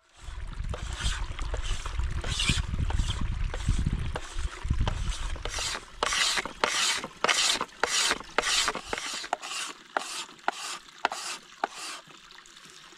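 A blade scraping shavings off a bamboo pole in repeated strokes, slower at first, then about two a second from midway, thinning out near the end. A low rumble runs under the first few seconds.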